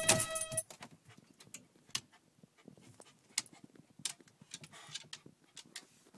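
Background music cuts off about half a second in, then a Jack Russell terrier moving about in a closet: faint scattered clicks and taps of its paws and claws, with a short soft rustle near five seconds.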